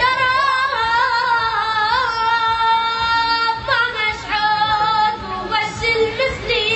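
A high-pitched voice singing long, held, wavering notes with small ornamental turns, breaking between phrases.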